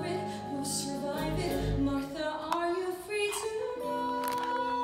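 Live stage-musical number: a woman singing with the pit band, with moving sung lines that settle into a long held note near the end.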